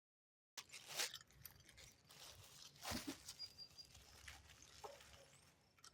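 Near silence, broken by a few faint clicks and soft rustles of small parts being handled.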